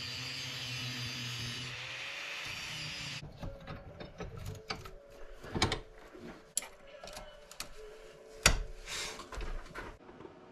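A steady mechanical hum for about the first three seconds, then scattered clicks, clinks and knocks of small steel pieces being handled, with one sharp knock near the end.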